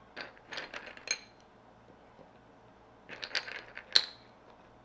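Hard sugar-shelled Cadbury Mini Eggs clicking and clinking against one another as they are handled and set into the cookie nests: a run of small clicks about a second in, and another near the end with one sharper clink.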